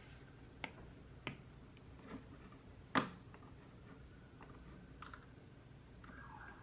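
A few isolated computer keyboard keystrokes, slow and irregular, the loudest about three seconds in, over a faint steady room hum.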